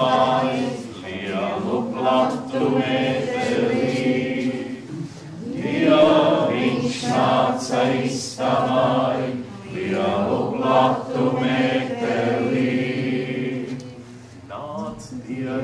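A small mixed group of men and women singing together unaccompanied, a chant-like melody in long held notes, with brief pauses for breath between phrases.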